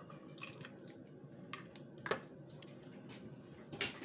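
Several light clicks and taps of kitchen utensils as chicken pieces are handled and buttered, the clearest about two seconds in and near the end.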